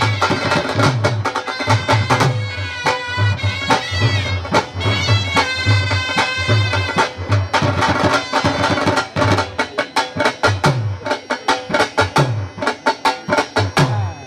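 Live Punjabi folk music: two dhol drums beat a steady rhythm of deep bass strokes about twice a second, mixed with sharp stick strokes. Over the drums, two woodwind pipes play a nasal, reedy melody.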